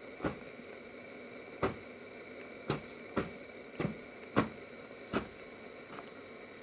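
Tree branches being snapped for Foley, close to the microphone: about seven sharp cracks at uneven intervals, the last one fainter, over a faint steady room hum.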